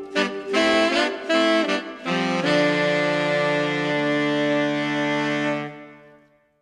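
Instrumental music: a few short notes, then a long held chord that fades out near the end.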